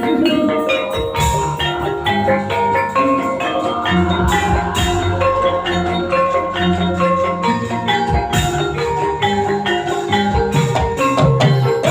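Gamelan music accompanying a kuda lumping dance: metallophones playing a fast run of short ringing notes over steady drumming.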